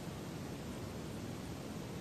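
Steady hiss with no distinct event: room tone and microphone noise.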